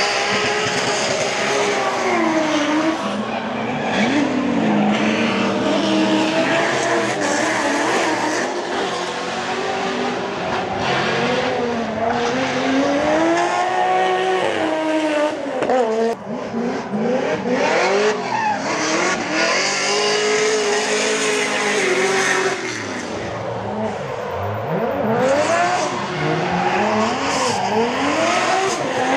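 Two drift cars sliding through a corner together, their engines revving up and down over and over as the throttle is worked, with tyres squealing.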